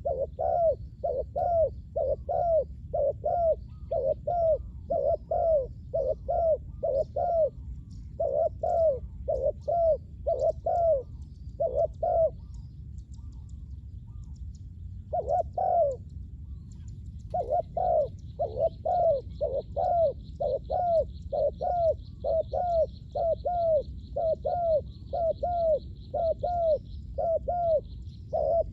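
Spotted doves cooing: runs of repeated low, arching coo notes about twice a second, with two short breaks partway through. A faint, fast, high trill joins in the background a little past halfway.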